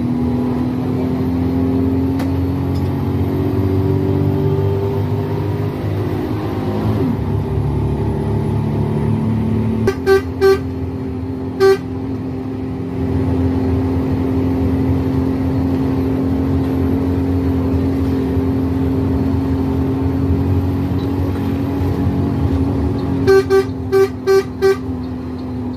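Bus horn sounding in short blasts over the steady drone of the bus's engine: three blasts about ten seconds in, then a quick string of about five near the end.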